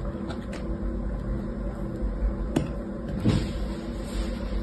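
Hands pressing and scraping kinetic sand into a plastic cup mould in a plastic tray, giving a few light clicks and a soft knock a little past three seconds in, over a steady low hum.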